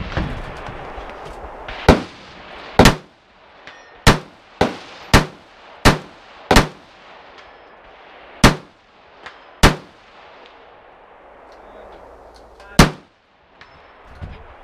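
AR-15 rifle in .223/5.56 firing about ten single aimed shots at irregular intervals, some in quick succession and others a second or more apart. A loud shot comes near the end after a pause of about three seconds.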